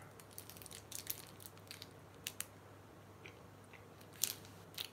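Faint chewing of a bite of a Cherry Ripe bar, cherry and coconut in a chocolate coating, heard as scattered small clicks and crackles.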